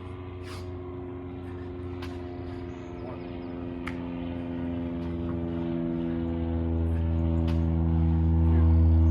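A low ambient drone of several held tones, like a gong or singing bowl, swelling steadily louder, with a few faint clicks over it.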